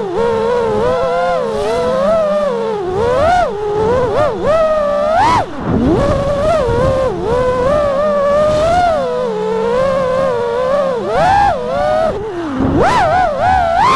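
FPV quadcopter's brushless motors whining, the pitch rising and falling quickly with throttle changes. It climbs sharply about five seconds in and again near the end.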